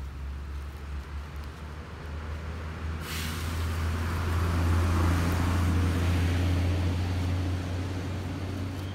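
A passing motor vehicle: a steady low engine hum, with road hiss rising in about three seconds in, loudest near the middle and fading toward the end.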